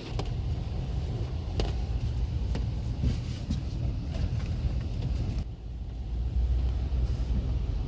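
Low rumble of a car heard from inside the cabin, with scattered sharp taps. About five and a half seconds in, the hiss fades and the rumble gets deeper and louder.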